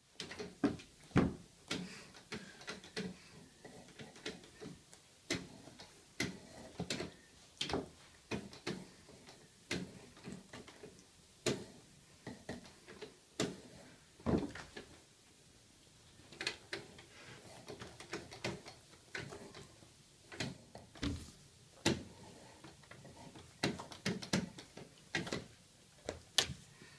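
A cat scuffling and thrashing about in catnip: irregular knocks, clicks and scratchy thuds, one or two a second, with a short lull about midway.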